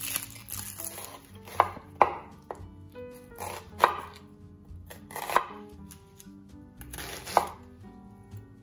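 Chef's knife slicing a red onion on a bamboo cutting board: about six sharp chops, the blade knocking on the board a second or two apart.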